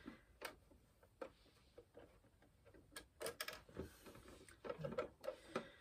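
Faint, irregular small clicks and taps from fabric and sewing-machine parts being handled at a domestic sewing machine, with the machine not running steadily.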